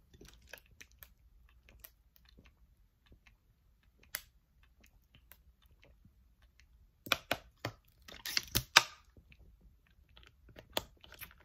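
Drinking from a thin plastic bottle: faint gulps and small clicks, then louder crackling and clicking of the plastic bottle and its screw cap being handled about seven to nine seconds in.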